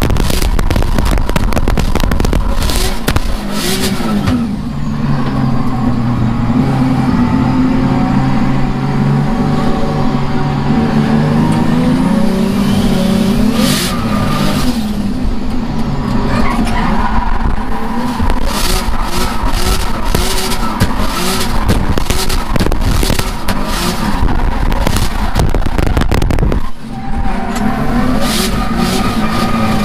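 BMW M3 drift car heard from inside the cabin while being driven hard: the engine revs up and drops back again and again as the throttle is worked, with brief lifts off the throttle, over loud tyre skidding noise.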